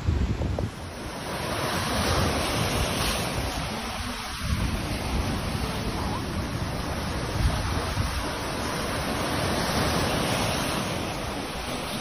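Sea surf breaking and washing over a rocky shore, a steady rushing hiss that swells and eases. Wind buffets the microphone with low rumbling gusts, strongest in the first second.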